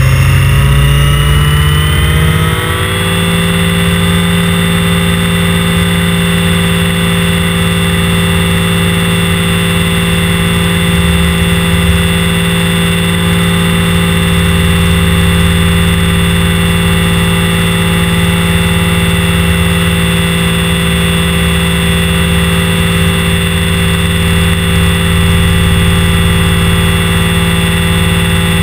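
Align T-Rex 550 RC helicopter's electric motor and rotor, heard up close from on board: a whine that rises in pitch for about the first three seconds as the rotor spools up, then holds a steady pitch in flight.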